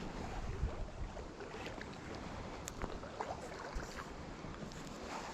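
Small stream running over rocks: a steady rushing with small splashes and ticks.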